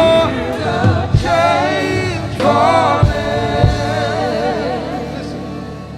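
Gospel worship singing: voices holding long, wavering notes over sustained low instrument tones, with a few low thumps, the whole growing quieter toward the end.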